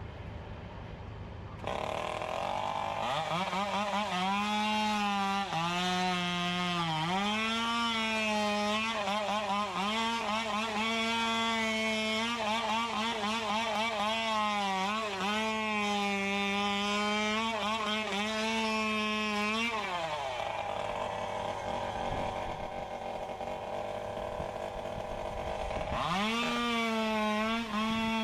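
Two-stroke chainsaw running at high revs, its pitch dipping and recovering again and again as it cuts through palm growth. It eases off about two-thirds of the way through and revs back up near the end.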